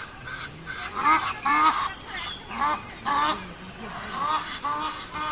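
Short honking bird calls, repeated two or three times a second in loose runs.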